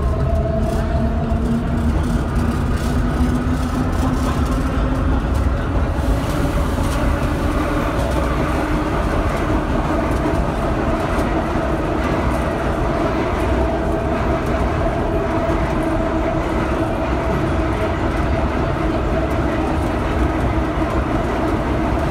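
Vintage IRT subway train running through a tunnel: a steady rumble of wheels on track with a hum from the motors underneath, its pitch shifting a little about five seconds in.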